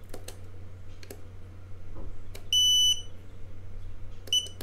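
UPair 2 drone transmitter beeping as its power button is pressed and held: one long high-pitched beep about halfway through, then two short beeps near the end, with a few faint clicks from handling the controller.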